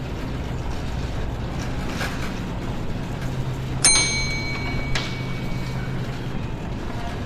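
A single sharp metallic clink about four seconds in, ringing briefly with several high tones, over a low steady hum and a few faint clicks.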